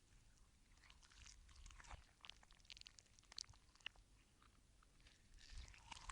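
Slime squishing: faint, scattered wet clicks and crackles, busier near the end.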